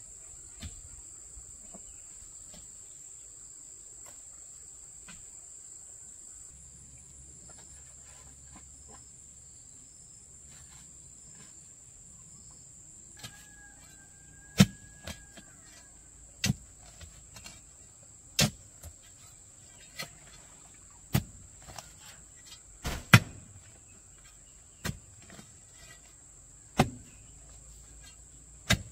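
Insects buzzing in a steady high drone. From about halfway in, about a dozen sharp knocks come one every second or two, louder than the drone.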